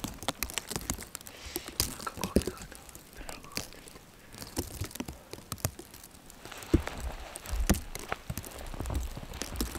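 Hiking boots crunching through deep snow in irregular footsteps, quieter for a stretch in the middle.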